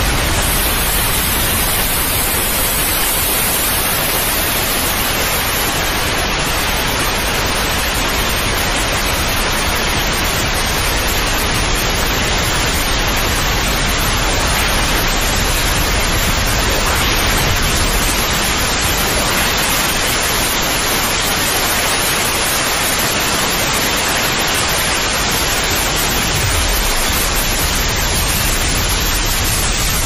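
Steady white noise: an even, continuous hiss, played as a sleep aid for a baby.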